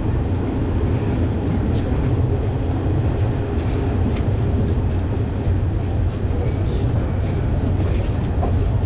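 Yelahanka–Kacheguda Express (17604) passenger train running on the track: a steady low rumble with faint clicks and rattles scattered through it.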